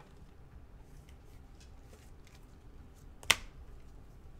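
Trading cards being handled and sorted with faint rustles and light taps. There is one sharp snap about three seconds in.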